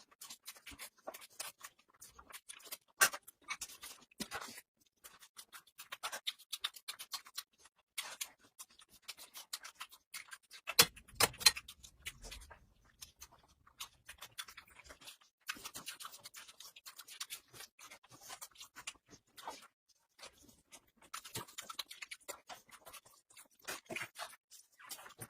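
Close-miked eating sounds: wet, irregular mouth clicks and smacks of someone chewing food, with a louder knock about eleven seconds in.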